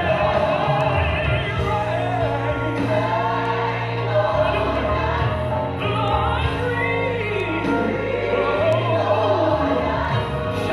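Recorded gospel choir music: voices singing together over held bass notes that change every few seconds.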